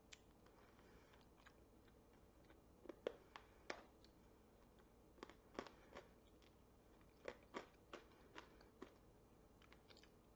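Faint, scattered clicks and crunches of a hard Lotte milk candy being bitten and chewed, too hard to bite through easily. The sharpest cracks come about three seconds in and again in a cluster between five and nine seconds, with near quiet in between.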